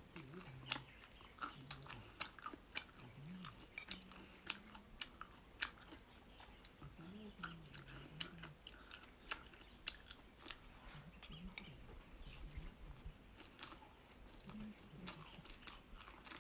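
Close-up chewing and biting of boneless chicken feet, with many sharp, irregular crunchy clicks.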